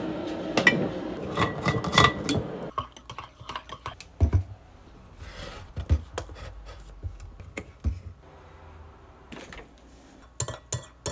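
Kitchen handling sounds: a run of clicks, clinks and knocks from a glass coffee jar and its lid, a plastic creamer bottle's flip cap and a refrigerator door. The first few seconds are a louder, denser clatter that stops abruptly.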